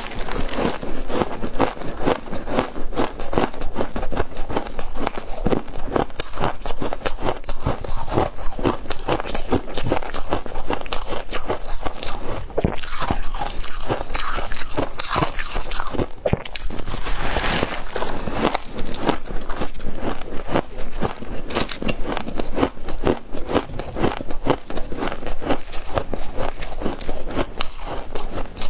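Close-up crunching and chewing of frost: a dense, continuous run of crisp crackling bites with no pauses.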